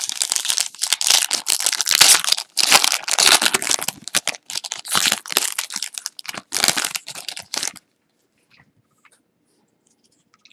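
Foil wrapper of a trading card pack being torn open and crinkled: a run of ripping and crackling for about eight seconds.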